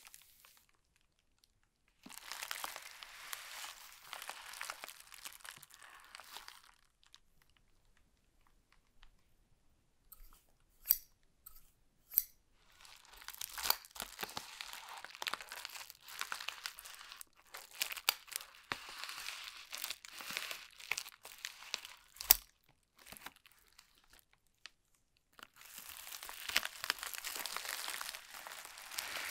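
Plastic bubble mailer crinkling and crackling as it is handled, slit open along its edge with a blade and pulled apart. This comes in three long stretches with quiet pauses between, and a few sharp clicks fall in the middle stretch.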